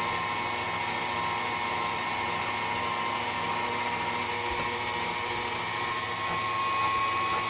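KitchenAid stand mixer running its meat grinder attachment as a sausage stuffer, with ground meat being pushed through into casing. The motor hums and whines steadily and evenly.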